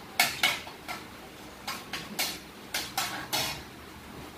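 A metal utensil clinking and scraping against a steel wok during stirring: about eight sharp, irregular clinks.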